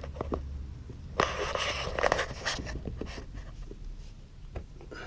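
Shears cutting through the plastic front bumper cover of a Toyota Tacoma: a run of short snips and crackles, with two longer rasping noises about one and two seconds in.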